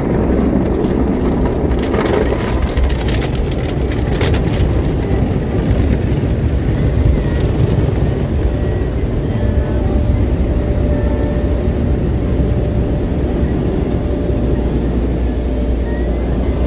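Automatic car wash working over the car, heard from inside the cabin: a steady low rumble of the machinery with water spraying and brushes slapping against the body, and a flurry of sharp spatters on the glass a couple of seconds in.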